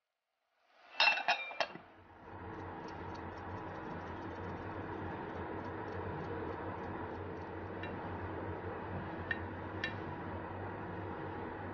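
A quick cluster of clinks from kitchenware about a second in, then a steady hum with a few faint ticks.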